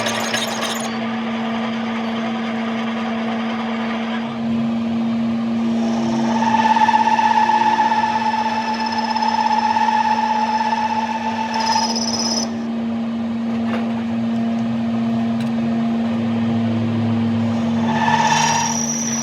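A workshop machine's motor running steadily with a constant hum. A higher whine sets in about six seconds in, stops about twelve seconds in, and returns briefly near the end.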